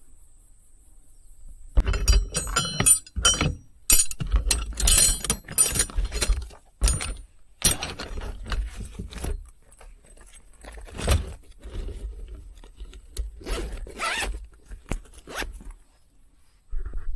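Gear being handled by hand: a busy run of rustling, scraping and light clinking. It starts about two seconds in, thins out after ten seconds and flares again near the end.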